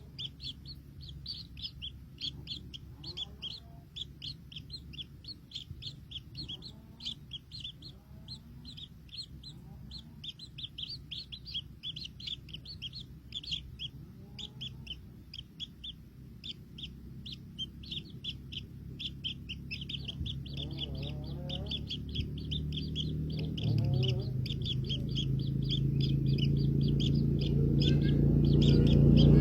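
Baby birds chirping rapidly and without a break, high thin calls typical of nestlings begging for food. A low steady hum grows louder over the last ten seconds.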